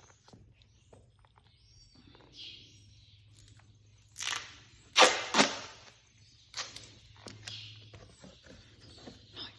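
Duct tape pulled off the roll in a few loud ripping pulls about four to five and a half seconds in, amid quieter handling noises and a low steady hum.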